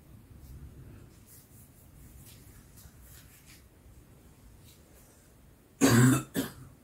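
A person coughing close to the microphone near the end: one cough of about half a second, then a shorter second one.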